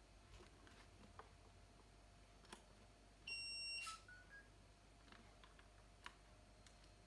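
Near-silent room with a faint steady hum and scattered soft clicks. A little past halfway comes a single electronic beep about half a second long, then a few faint short tones stepping up in pitch.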